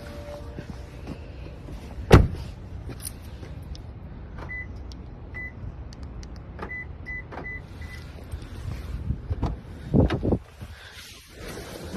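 Toyota Tacoma sounds: a steady low rumble, a loud clunk about two seconds in, a string of short high-pitched beeps in the middle, and more loud clunks near the end, after which the low rumble drops away.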